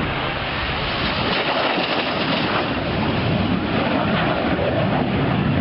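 Jet aircraft roar, a steady rushing noise that slowly grows louder.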